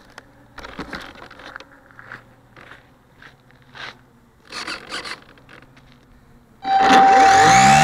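Short scrapes and rubs of the model plane being handled on the ground. Near the end, the RC Super Cub's electric motor and propeller start up suddenly and rise in pitch to a loud whine for takeoff.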